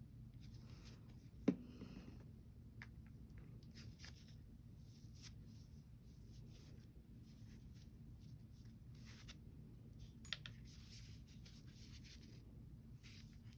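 Faint rubbing and handling of pistol parts being wiped with a cleaning cloth, with a sharp click about a second and a half in and a smaller click near ten seconds.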